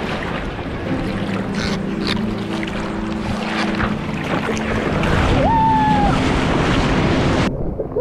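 Ocean surf and water splashing around a bodyboard, picked up close on a waterproof action camera at the water's surface, with wind on the microphone. The water noise cuts off abruptly near the end.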